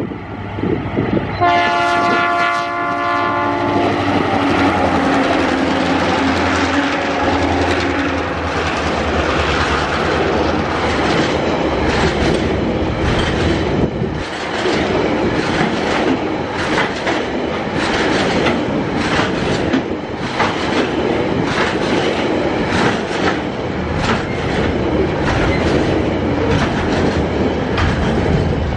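Tasrail diesel-hauled coal train: one horn blast of about two seconds from the lead locomotive, then the locomotive's engine passing with its note dropping in pitch. Then the coal hopper wagons rolling by with a steady clickety-clack of wheels over the rail joints.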